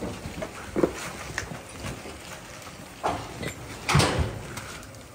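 Irregular thumps and scuffs of Jersey heifers' hooves and a person's boots moving across a wet, manure-covered concrete barn floor, the loudest knock about four seconds in.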